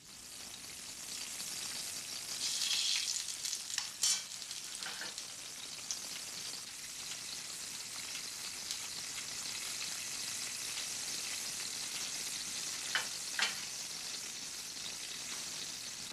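Steady sizzling of food frying, with a few light clicks about four seconds in and again near the end.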